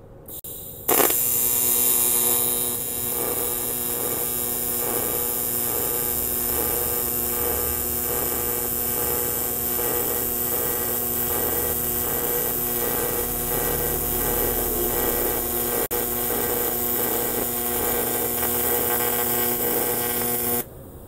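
AC TIG welding arc from a Sanjoe TIG200P AC/DC welder on 2 mm aluminium sheet, at 100 A with 120 Hz AC frequency and 35% cleaning balance. The arc strikes about a second in, with more hiss over the first couple of seconds, then holds a steady buzz that falters for an instant once and cuts off abruptly near the end as the bead is finished.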